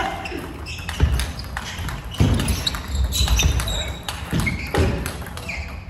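Table tennis rally: a celluloid-type ball clicking off rubber paddles and bouncing on the table at uneven intervals, with heavier low thuds in between, typical of players' footwork on a wooden gym floor.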